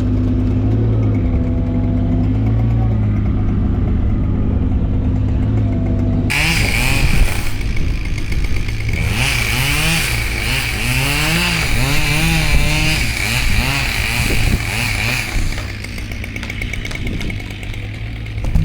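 A mini excavator's engine runs steadily. About six seconds in, a small chainsaw fitted with a new chain starts cutting at high revs, its pitch rising and falling as it works through the wood. It eases off a few seconds before the end.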